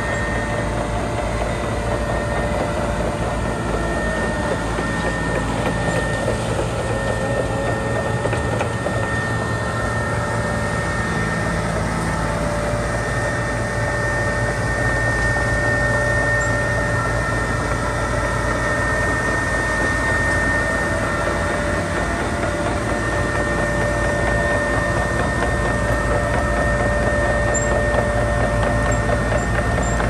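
A 2019 Dynapac SD2500CS crawler asphalt paver travelling on its tracks: its diesel engine running steadily, with a steady high whine over the engine note. It gets slightly louder about halfway through.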